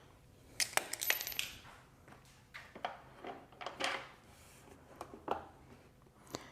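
Scattered light clicks, clinks and knocks of hand tools and small metal parts as the pit bike's shield and fuel tank are unbolted and lifted off, with a quick cluster of clicks about a second in.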